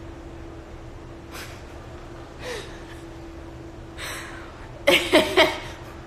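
A woman breathing out audibly a few times, then breaking into laughter with three quick loud bursts about five seconds in.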